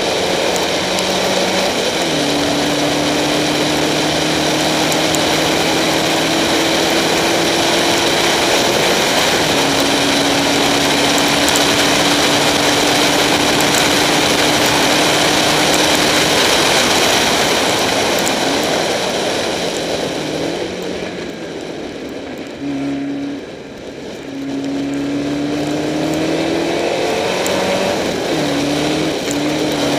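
Spec Racer Ford's four-cylinder engine running hard on track, heard from the onboard camera with a steady hiss of wind and spray over it. Its pitch steps down at upshifts about two seconds and about nine seconds in; about twenty seconds in the engine eases off and quietens briefly, then climbs back up under acceleration near the end.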